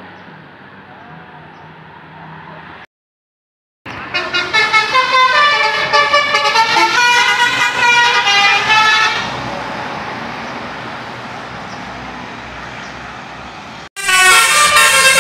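Basuri telolet horn on a Jetbus 5 bus playing a tune of stepping, changing notes for about five seconds, then dying away into steady road noise. After a short cut to silence about three seconds in and another near the end, the horn is loud again in the last second.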